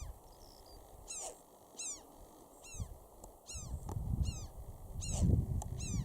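A bird calling over and over, about eight short, sharp calls that each slide down in pitch, spaced irregularly. Wind gusts rumble on the microphone, strongest near the end.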